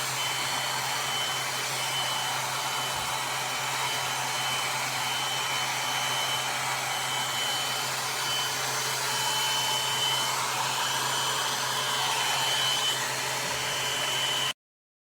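Aima Beauty one-step hot air brush (1100 W hair dryer brush) running steadily on its high setting: a continuous fan rush of air with a faint high-pitched whine. It cuts off abruptly near the end.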